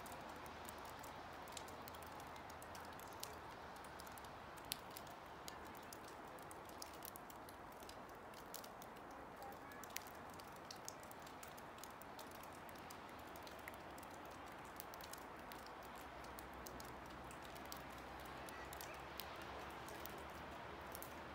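Quiet outdoor ambience: a faint steady hiss with scattered small, irregular clicks and ticks.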